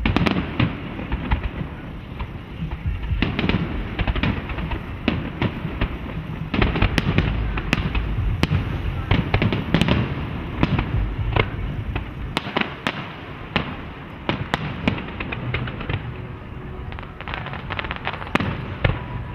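Fireworks display: aerial shells bursting in rapid, overlapping bangs with crackling and a rumbling background. The bangs thin out after about twelve seconds and come thicker again near the end.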